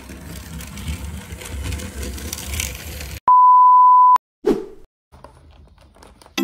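Battery-operated toy train running along plastic track, a continuous rattling rumble. About three seconds in it is cut off by a loud, steady, high test-tone beep lasting about a second, the TV colour-bars tone, followed by a brief whoosh.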